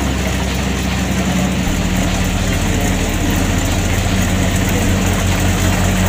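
Kubota DC70 Plus combine harvester's diesel engine running steadily as the machine moves through the rice paddy, with a fast, even pulsing under its drone and a wide mechanical hiss from the working machinery.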